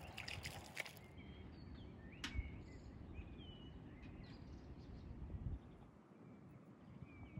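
Small birds chirping and calling in short, scattered phrases over a steady low outdoor rumble. A scratchy rustle fills the first second and cuts off abruptly, and there is one sharp click a little after two seconds.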